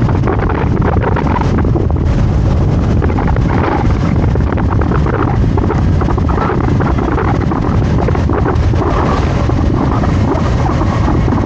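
Wind rushing over the camera microphone on a moving scooter: a loud, steady rumble and hiss.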